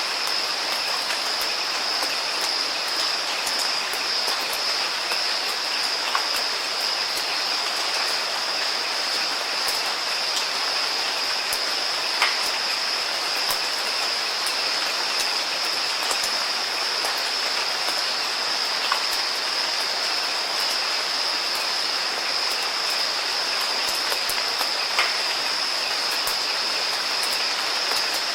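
Steady rain: an even hiss with scattered drop ticks, a few of them louder, about 6, 12, 19 and 25 seconds in.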